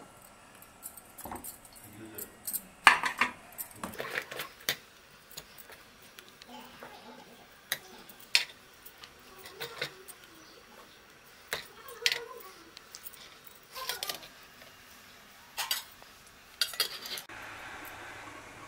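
Stainless-steel cups and the idli-stand plate clinking and tapping, with a spoon knocking against steel, as batter is spooned into the cups. The clinks come one by one throughout, the loudest about three seconds in, and a steady hiss sets in near the end.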